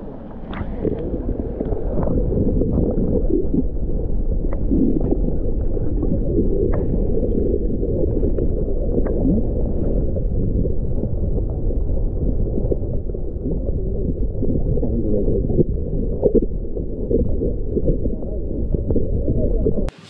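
Water heard with the camera held under the surface: a loud, muffled rush of moving water with bubbling and a few faint clicks, all dull and low.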